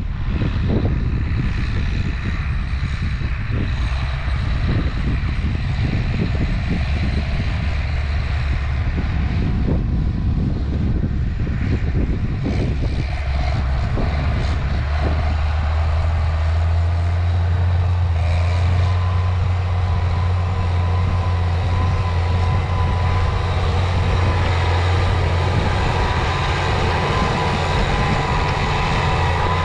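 Tractor engine running steadily as it pulls a disc cultivator across the field, with gusts of wind hitting the microphone in the first half. From about halfway the engine's low hum grows stronger and steadier as the tractor draws close.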